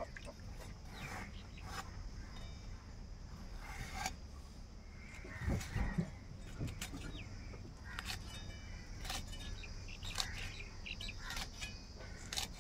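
Ridge gourd being cut into small pieces against an upright, floor-mounted curved iron blade: sharp clicks at irregular intervals, about one a second, with a duller knock about halfway through.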